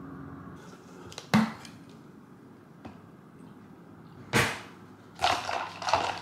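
A straw stirring a drink in a clear plastic tumbler, a rapid rattling clatter that starts about five seconds in. Before it come a couple of sharp knocks on a hard counter, the loudest about four seconds in.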